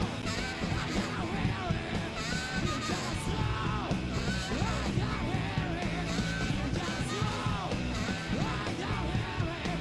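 Live garage rock band playing: driving drums, bass and distorted electric guitar with a tenor saxophone playing melodic lines, and a raspy, shouted male vocal.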